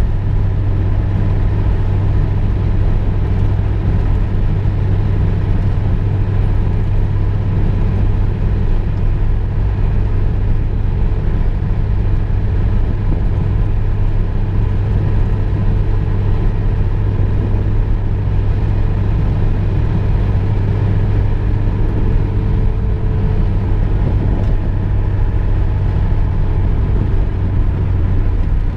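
Inside-cabin drone of a VW Golf II cruising at a steady speed: a constant deep engine hum under low tyre and road rumble, with no change in pace.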